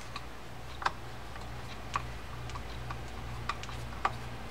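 Light, irregular metal clicks of a screwdriver working the small set screw at the center of a spinning reel's body, over a faint low steady hum.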